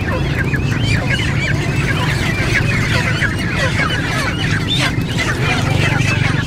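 A crowd of live broiler chickens, bunched and hung upside down by their feet, giving many short, high, overlapping squawks and cheeps without pause. A steady low hum runs underneath.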